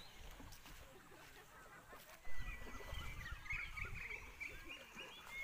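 Birds chirping and calling, with a long, steady, high whistle-like note from about two seconds in. A bump and low rumble on the microphone come at about the same moment.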